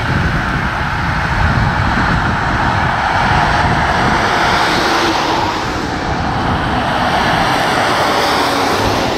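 Road vehicle driving by close, a steady rush of engine and tyre noise.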